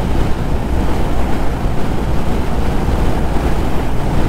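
Steady low rush of wind on the microphone of a motorcycle rider moving at highway speed.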